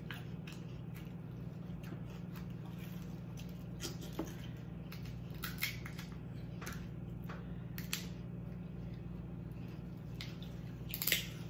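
Kitchen shears snipping through snow crab leg shells, with the shells cracked and picked by hand: scattered sharp clicks, snips and crunches, the loudest near the end. A steady low hum runs underneath.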